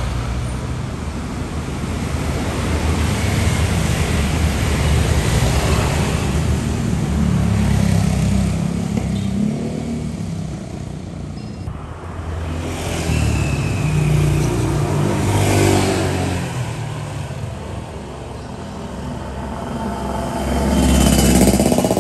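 Road traffic: motor vehicles passing, the engine noise swelling and fading several times.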